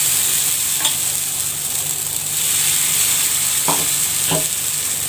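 Ragi dosa batter sizzling as it is ladled onto a hot, oiled non-stick tawa, a steady frying hiss. A few faint clicks come from the steel ladle touching the pan, about a second in and again near the end.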